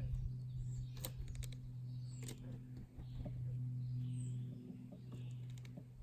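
Red-bellied woodpecker foraging in sunflower and mixed seed on a wooden feeder tray: scattered sharp clicks and seed rattles, over a steady low hum.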